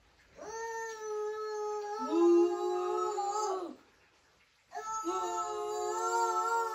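Children mooing like cows: two long, drawn-out moos of about three seconds each, with a second, lower voice joining partway through the first and mooing along with the second.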